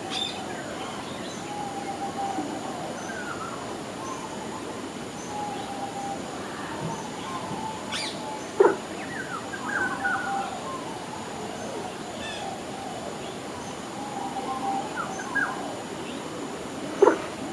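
Assorted small birds calling and chirping over a steady outdoor hiss: short whistles and quick rising chirps, scattered throughout. Two short, louder sharp sounds stand out, one about halfway through and one near the end.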